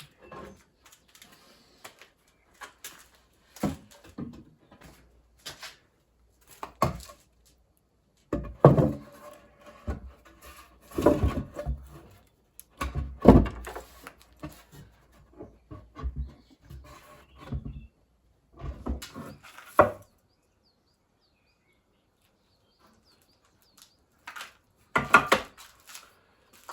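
Irregular wooden knocks and thuds, as of boards being handled and set against each other, loudest in the middle, with a few seconds of quiet before a last cluster of knocks near the end.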